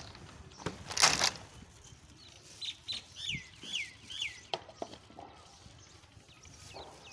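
A short, loud burst of handling noise about a second in. A bird then calls in the middle with a run of about five quick, falling chirps. A few light knocks follow.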